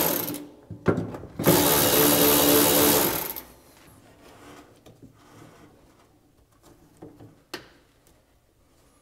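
Cordless power tool spinning a nut off a firewall stud in two bursts: one ends just after the start, and the other begins about a second and a half in and lasts nearly two seconds. Faint clinks of parts being handled follow, with a sharp click near the end.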